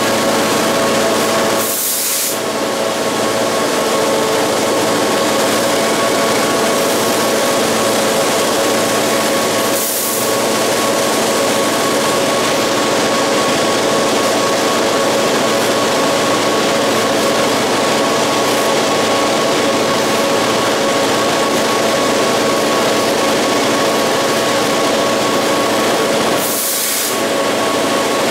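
Diesel locomotive engine running steadily with a constant hum, mixed with wheel and rail noise, heard from the walkway of the moving locomotive. Three brief hisses cut in: near the start, about a third of the way in, and near the end.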